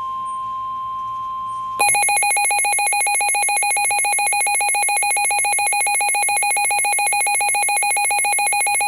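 NOAA Weather Radio alert signal for a Severe Thunderstorm Warning. The broadcast's single steady warning tone is cut off a little under two seconds in by a louder, rapidly pulsing electronic beeping alarm from the weather radio receiver. The pulsing alarm runs on unbroken.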